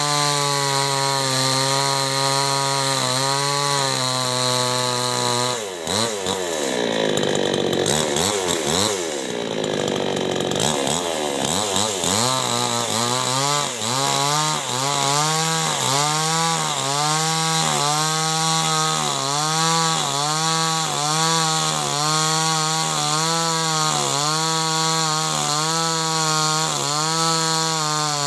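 Two-stroke chainsaw running at high revs while cutting wood, its pitch dipping and recovering about once a second under load. For several seconds in the middle the pitch sags and wavers, then picks back up.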